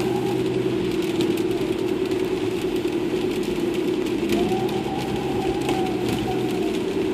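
Audi A4's turbocharged engine running steadily, with a whistling tone from the turbo that comes in about four seconds in, holds for about two seconds and fades out.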